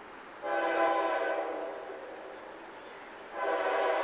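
Air horn of a GE C40-8 diesel locomotive leading a coal train, sounding a chord of several notes in two long blasts: the first about half a second in, the second starting near the end. The locomotive is whistling for the grade crossing.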